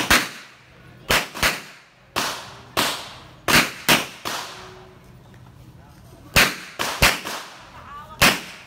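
Handgun gunshots fired in a rapid practical-shooting course of fire, about a dozen sharp cracks, mostly in quick pairs, with a pause of nearly two seconds midway before the shooting resumes.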